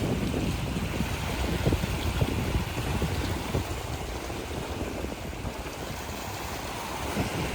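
Wind buffeting the microphone in uneven low gusts over a steady rushing background.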